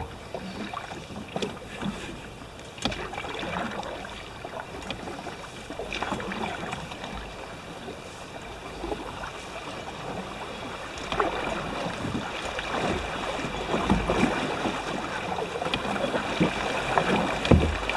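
Canoe paddling on a river: a paddle dipping and pulling through the water, with splashing and water noise around the hull. The water sound grows louder in the second half.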